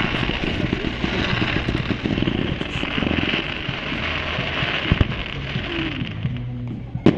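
Fireworks display: a dense crackling of many small bursts that thins out about six seconds in, with sharp bangs about five and seven seconds in.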